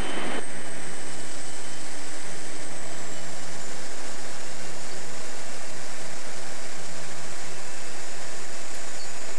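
Quest Kodiak 100's PT6A turboprop engine and propeller running steadily with rushing air as the plane rolls out fast down the runway after landing. A thin high turbine whine dips slightly in pitch about three seconds in.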